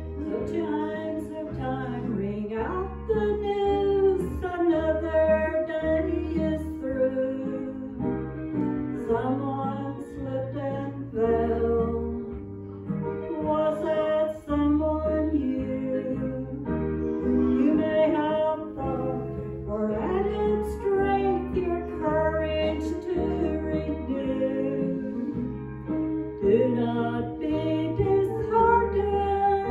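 A woman singing a hymn into a microphone over instrumental accompaniment with a bass line that changes notes about every second.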